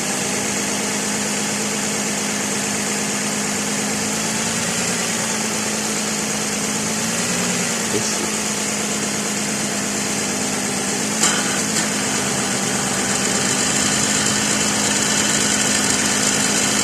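The 3.3-litre 3MZ-FE V6 of a 2006 Lexus ES330 running steadily with a metal-on-metal grinding noise from the alternator area. The noise comes from the alternator, loose because a wrong-size upper bracket bolt is not tucked all the way in. A short click sounds about two-thirds of the way through.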